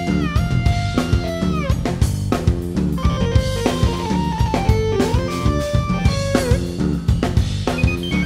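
Progressive rock band playing live: drum kit keeping a steady beat under keyboards, with a lead line that bends its notes downward in pitch several times.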